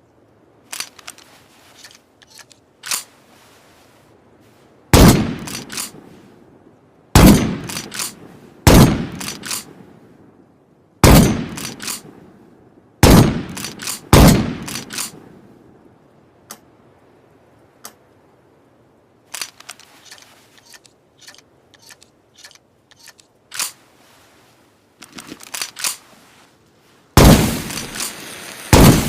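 Improvised imitation of a pump-action shotgun: light clicking and clacking like the slide being racked, between several loud sharp bangs that each ring out briefly. The bangs come in a cluster of six over the first half, then after a run of small clicks come two more near the end.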